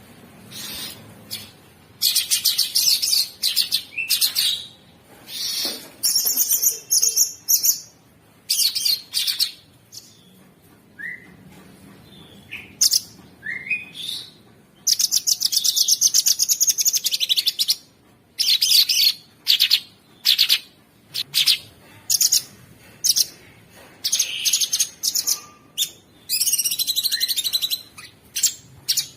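Cucak sungkok singing a harsh, rapid rattling song ('ngebren'): repeated bursts of fast buzzy trills, some held for about three seconds, broken by short chirps and brief pauses.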